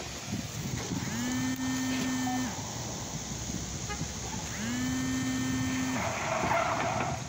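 A car engine revved hard three times, each time rising quickly, held high for about a second and a half, then dropping back, about three and a half seconds apart. A harsh, rough noise comes near the end.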